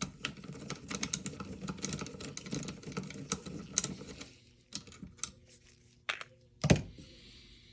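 Rapid clicking and rattling of small parts being handled as an airsoft M4 handguard is taken apart. After about four seconds it thins to a few separate clicks and one louder knock near the end.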